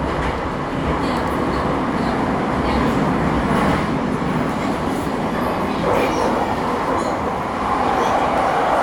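Bucharest Metro line M2 train running through a tunnel, heard from inside the car: a steady running noise of wheels on the track.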